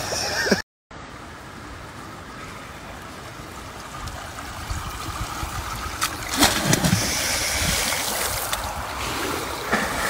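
Steady rushing of pool water. In the second half it grows louder as a man jumps into the pool and water splashes up around him.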